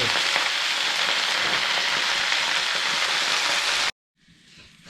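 Food sizzling steadily in hot oil in a wok, cutting off suddenly about four seconds in.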